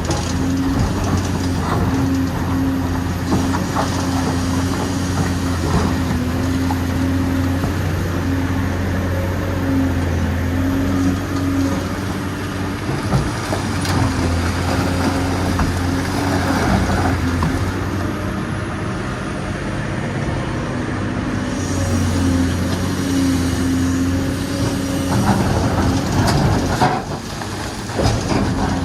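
Dubbed-in recording of a real excavator at work: a diesel engine running steadily under load, with a pitched hydraulic whine that breaks off and returns, and scattered knocks of stone.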